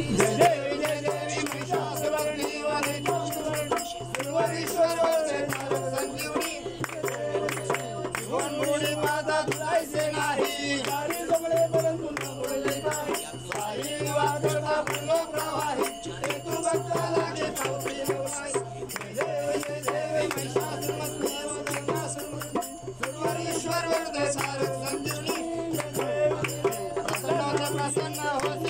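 Group of people singing a Ganpati aarti together, with a steady beat of sharp percussive strokes keeping time.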